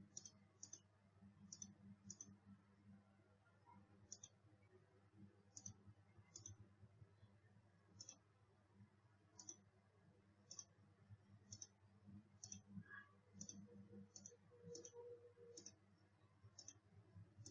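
Computer mouse clicking: about twenty faint, sharp single clicks at irregular intervals, over a faint low steady hum.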